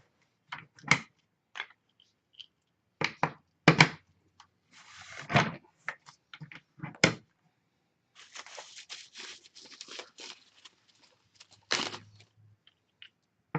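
Office chair casters being pulled out of and snapped into the sockets of the chair base, as plastic casters are swapped for rollerblade-style polyurethane wheels on steel stems. The sound is a series of sharp knocks and clacks a second or two apart, with a stretch of scraping rattle a little past the middle.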